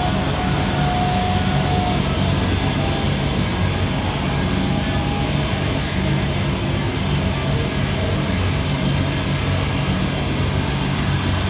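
Sludge metal band playing live: a loud, continuous wall of heavily distorted guitars and bass, with a brief thin high tone about a second in.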